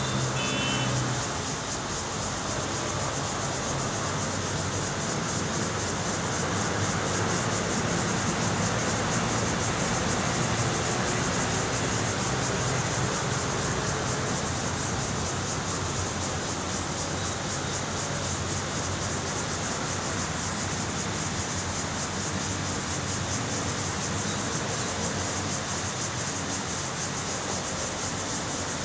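Steady high-pitched buzzing of insects, with a fine rapid pulse, over a dull background rumble that swells a little a few seconds in and then settles.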